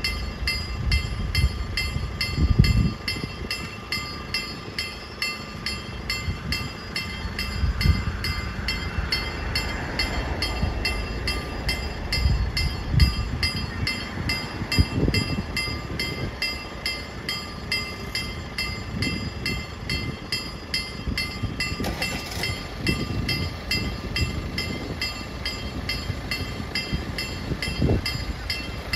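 Level-crossing warning signal sounding: a ringing tone that repeats evenly, a little over twice a second, without a break. Irregular low rumbles and thumps sound beneath it.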